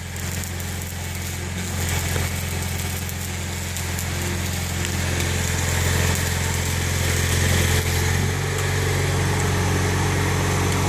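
Electric arc welding on a steel fire-escape bracket: a steady sizzling hiss from the arc, over the even hum of an engine running steadily throughout.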